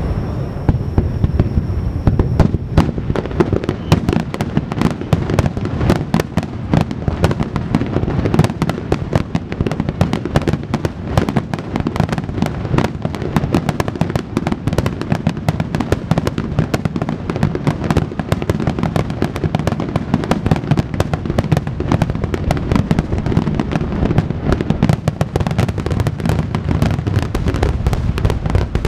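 Aerial firework shells bursting in a continuous rapid barrage: dense, overlapping booms and crackles with no pause, many strokes a second over a constant low rumble.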